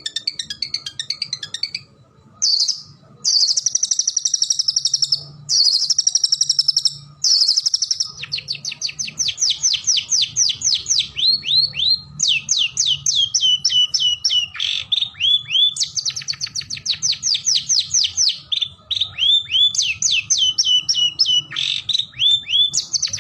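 Long-tailed shrike (cendet) singing: a short chatter, then a few harsh buzzy bursts, then long fast runs of short whistled notes, each sliding downward, several a second.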